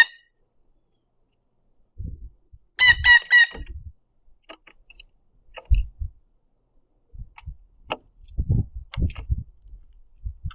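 Birds at a platform feeder: a quick run of four or five ringing, pitched notes about three seconds in, followed by scattered low thumps and light taps of birds moving and pecking on the wooden platform.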